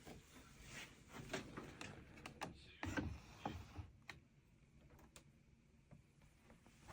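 Faint handling noises: a string of light clicks and knocks with some rustling, the loudest of them with a dull thump about three seconds in.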